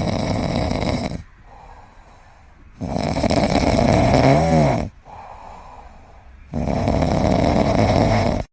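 A sleeping pet snoring loudly: three long snores about three seconds apart, with quieter breaths between them. The second snore has a brief wavering, vibrating tone in it.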